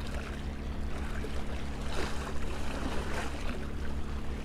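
Water lapping and gently splashing, with a steady low rumble underneath and a couple of faint splashes about two and three seconds in.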